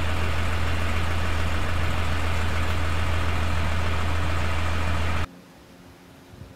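An engine idling close by: a loud, steady drone with a deep hum. It cuts off suddenly about five seconds in, leaving only faint background.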